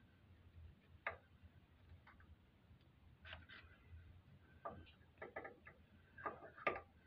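Faint, irregular small clicks and taps as a camshaft and its gear are worked into the cam chest of a motorcycle V-twin, the parts knocking lightly against the engine. The taps come in small clusters, the loudest near the end.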